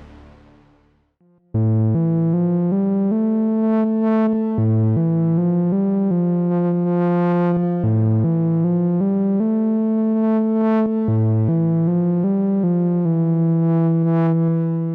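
GForce Oberheim SEM software synthesizer playing a legato melodic line of sustained notes with many overtones, changing pitch about every half second to a second and ending on a held note that fades near the end. In the first second, the noisy tail of the previous patch dies away before the line begins.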